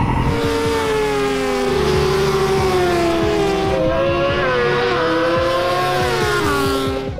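Racing motorcycle engines at high revs passing at speed, their pitch sliding down as they go by. The pitch jumps up about four seconds in and falls away again.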